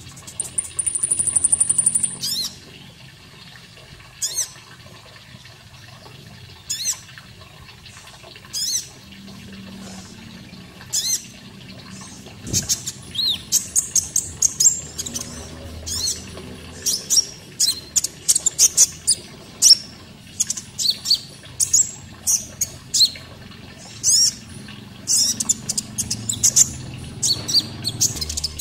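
Konin songbird calls: a rapid high trill for about two seconds, then single sharp, high chirps every couple of seconds that thicken into quick, busy chirping from about halfway through. A faint steady sound of running water lies beneath.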